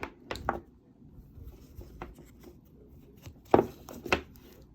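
Handling of a plastic AC power inlet plug and its cord: a few scattered light clicks and knocks, with two sharper knocks about three and a half and four seconds in.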